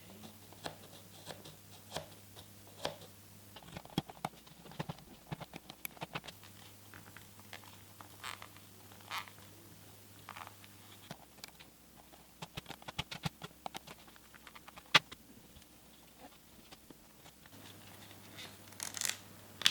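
Faint, irregular scratching, crackling and clicking of an old leather shift boot being cut with a blade and pulled off its glued plastic frame, with one sharper click about three quarters of the way through.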